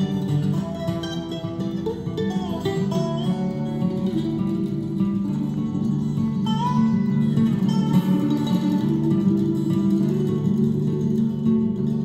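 Guitar-led music with no vocals, played from a USB stick through a Fosi Audio BL20A amplifier into Sonodyne Sonus 3260 two-way bookshelf speakers, at a steady level.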